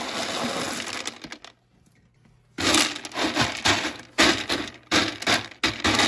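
Expanded clay pellets poured from a plastic tub onto the glass floor of a tank: a continuous dense rattling clatter that trails off about a second and a half in. After a short pause, a hand pushing and levelling the pellets makes a run of short, irregular rattling scrapes.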